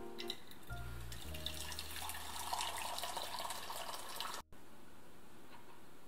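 A countertop water dispenser is switched on with a click; its pump starts with a low hum and water streams from the spout into a stainless-steel gooseneck kettle. The pouring cuts off suddenly about four and a half seconds in.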